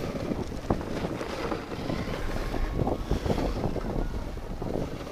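Wind buffeting a handheld phone camera's microphone while snowboarding downhill, with the board hissing and scraping over the snow.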